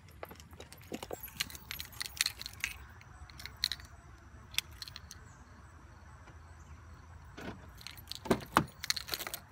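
Keys jangling and clicking on a keyring that holds a car key fob, with a cluster of louder knocks near the end as the car door is opened.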